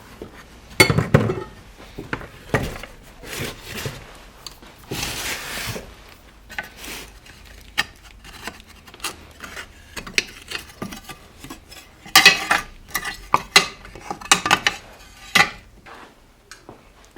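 Metal chainsaw parts and hand tools clinking, knocking and clattering irregularly as the saw is taken apart, busiest about twelve seconds in.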